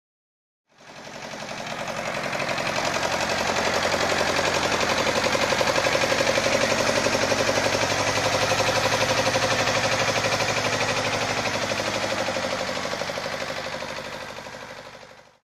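Shibaura SU 1341 compact tractor's engine running with a fast, even beat, fading in about a second in and fading out near the end.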